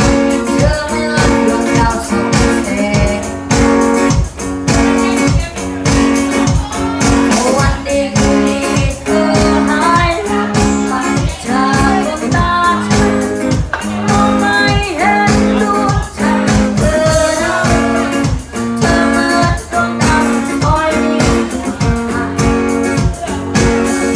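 Live band playing a song: a singer over guitar and a steady drum beat.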